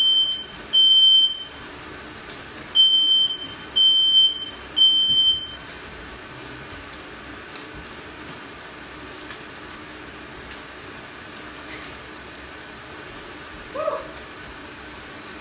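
Household smoke alarm set off by smoke from steak searing in a very hot cast-iron pan: loud, high-pitched beeps in groups of three, stopping about five and a half seconds in.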